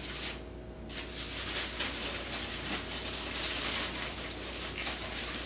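Aluminium foil crinkling and crackling as it is rolled and folded by hand around a fish into a packet, with a short lull about half a second in.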